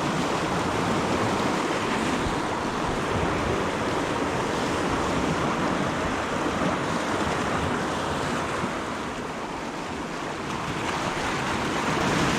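Sea waves washing in at the shoreline, a steady rushing noise that eases a little and then swells again near the end.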